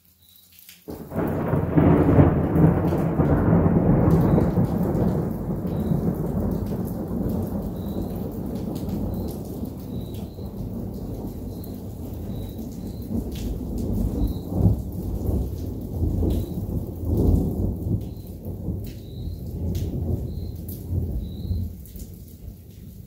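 Thunder breaks suddenly about a second in, then rolls and rumbles for some twenty seconds, swelling again several times as it slowly fades.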